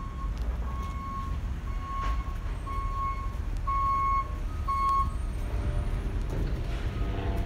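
A vehicle's reversing alarm beeping about once a second on a steady high tone, stopping about five seconds in, over a steady low rumble.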